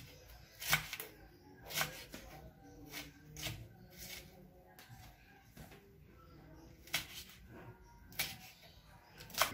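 Kitchen knife cutting chilies on a wooden cutting board: a few sharp knocks of the blade on the board at irregular intervals, with quieter slicing between them.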